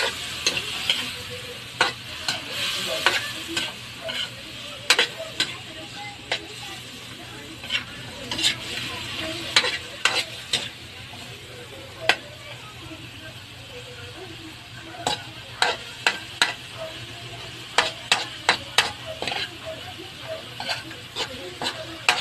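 Chicken pieces sizzling in a wok while a metal ladle stirs them. The ladle scrapes and clicks against the pan at irregular intervals over a steady frying hiss.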